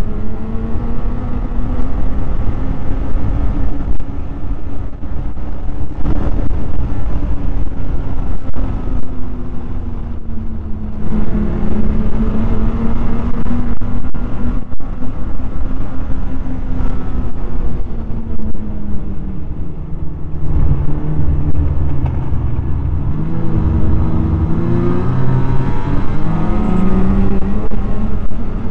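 Snowmobile engine running while riding along a trail, its pitch rising and falling with the throttle. It drops low a little after twenty seconds as the sled slows, then climbs again. A steady low rumble runs underneath.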